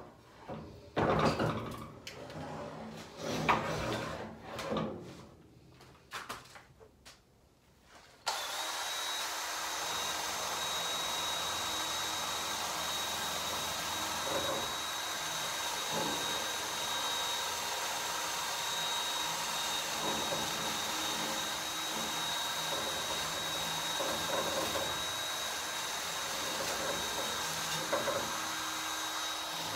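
Knocks and clatter of a rusted metal garden butterfly being handled on a wooden workbench. About eight seconds in, a cordless drill starts and runs steadily with a thin whine, scouring surface rust off the metal.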